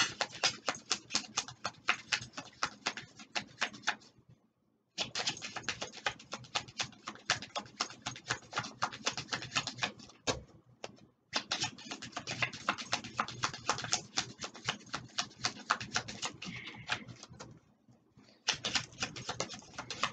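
Oracle cards being shuffled by hand: rapid soft clicks and slaps of card on card, several a second, in runs of a few seconds with three short pauses.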